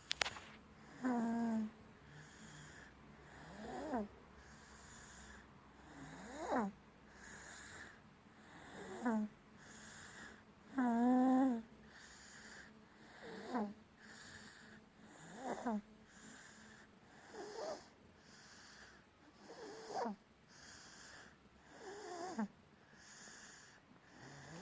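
Rhythmic snoring, one breath about every two and a half seconds, each carrying a squeaky whistling note that slides up and down in pitch.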